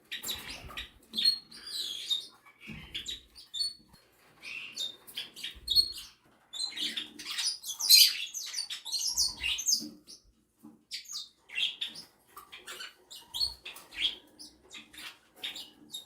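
Small cage birds chirping: many short, high calls overlap throughout, with the busiest and loudest flurry about eight seconds in, and a few dull low thumps in between.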